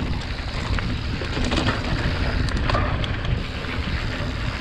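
A mountain bike rolling fast downhill over a dirt and rock trail: wind rumble on the microphone and tyre noise, with scattered clicks and rattles from the bike over rough ground.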